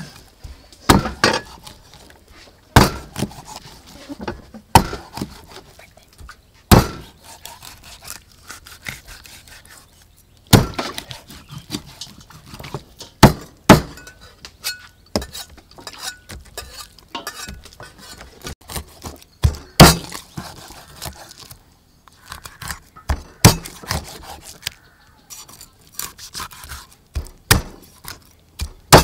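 A large knife chopping a whole fish into thick steaks on a wooden chopping block: sharp thunks as the blade goes through the fish into the wood, at irregular intervals of one to three seconds, some in quick pairs.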